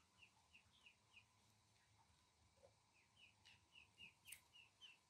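Domestic duckling peeping faintly: a run of short, falling peeps, about three a second, then after a pause of nearly two seconds a second, longer run at about four a second. A faint sharp click comes about four seconds in.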